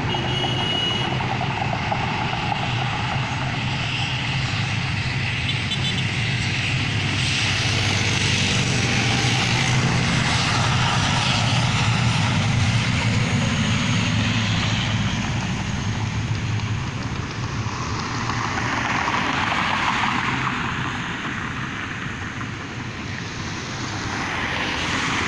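Twin-engine turboprop airliner's engines and propellers running at high power for takeoff: a steady drone with a low propeller hum, swelling and then easing off about three-quarters of the way through as the plane climbs past.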